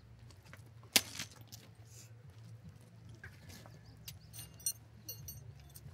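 A rooftop tent's annex being set up by hand: one sharp click about a second in, then light metallic clinks later on, over a low steady hum.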